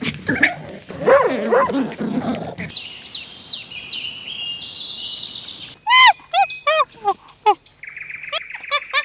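A run of different animal sounds one after another: a dog whining and barking, then birds chirping high, then a quick series of short calls that each fall in pitch.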